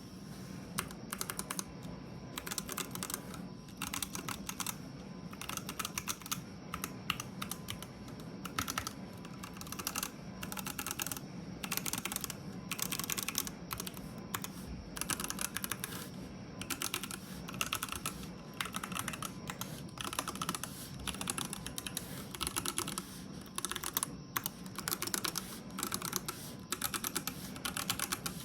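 Typing on an IDOBAO ID80 custom mechanical keyboard fitted with Kiwi switches and PBT keycaps: fast runs of key clacks in bursts, with short pauses between them.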